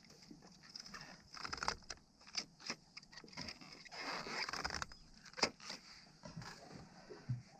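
Faint underwater sounds picked up by an action camera in its housing: scattered small clicks and knocks over a steady high hiss.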